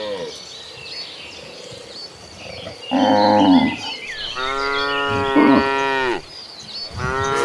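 Herd of cattle mooing, several cows calling in turn: a moo trails off at the start, a short loud moo comes about three seconds in, then a long drawn-out moo overlapped by a second cow, and another moo begins near the end.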